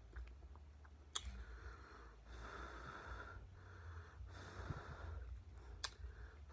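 Quiet nasal breathing of a person eating, in several long breaths of about a second each, with two sharp clicks, one about a second in and one near the end.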